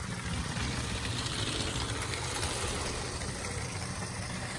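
LEGO Disney Railroad steam locomotive and tender (set 71044) running steadily around plastic LEGO track, driven by a Powered Up train motor in the tender.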